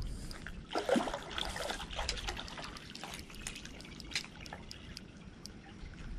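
Water trickling and dripping, with irregular small splashes and clicks, busiest in the first couple of seconds.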